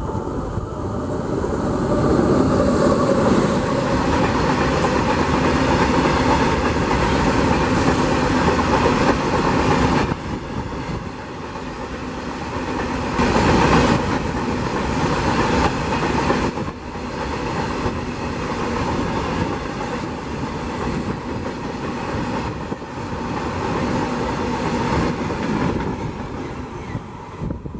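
Freight train of BOXN open wagons hauled by a WAG-9 electric locomotive passing close at speed: a steady loud rumble and clatter of wheels over the rails. It builds over the first couple of seconds and peaks around the middle.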